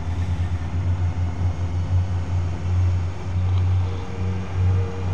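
Motorcycle engine running steadily while riding, a deep drone with a fainter higher hum joining near the end.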